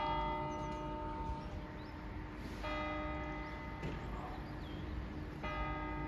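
Church bell tolling: three strokes about two and three quarter seconds apart, each ringing on and fading.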